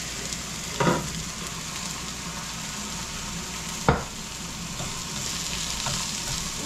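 Thin top round steaks and sliced onions sizzling steadily in a hot frying pan. There are two short knocks on the pan, about a second in and again near four seconds in.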